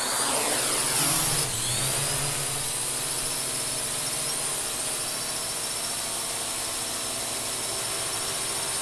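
Small quadcopter drone's propellers and motors whining, a high buzz that slides down in pitch over the first second or so and then holds steady.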